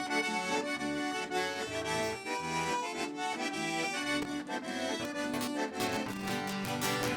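Accordion-led band music: a lively instrumental passage over a rhythmic accompaniment of low notes.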